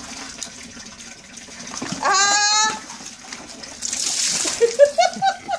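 A wet cat being bathed lets out one long, loud yowl about two seconds in. Near the end water is poured over it from a bowl and splashes.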